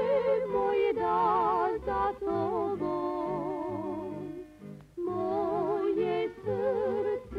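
Background music: a melody line with strong vibrato over low, steadily stepping accompaniment notes, pausing briefly between phrases about two and five seconds in.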